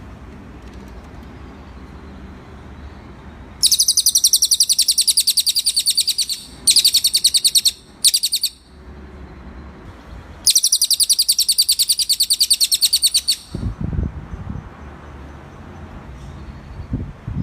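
Cililin bird singing: four bouts of rapid, evenly repeated high notes in a fast trill, the first and last about three seconds long and two short ones between them, over a low steady rumble.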